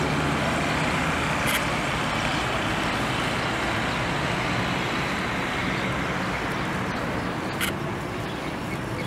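Street traffic: a steady hum of passing vehicle engines, with two brief clicks, one about a second and a half in and one near the end.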